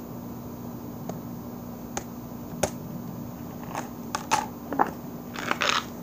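Handling noise close to the microphone: a hard plastic disc and a person shifting on pebbled concrete. A few sharp clicks, then a cluster of scraping, crunching taps in the second half, over a steady low hum.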